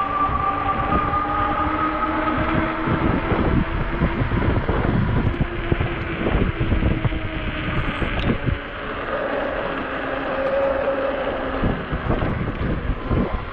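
Ecotric 20-inch e-bike's hub motor whining steadily under power while riding, over wind buffeting the microphone and low road rumble.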